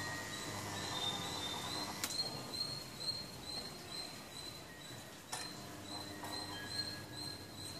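A small animal chirps over and over at a high pitch, about two chirps a second. Two sharp clicks come about two and five seconds in.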